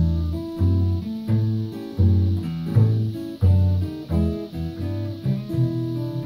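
Two acoustic guitars played together, chords over a picked bass line with about two bass notes a second.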